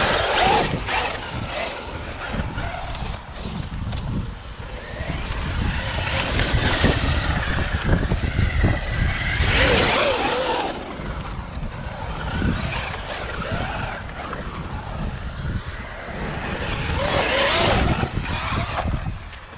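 Traxxas UDR electric RC desert truck driven hard off road: its electric motor whines, rising and falling in pitch with the throttle, over rumbling tyre, ground and wind noise.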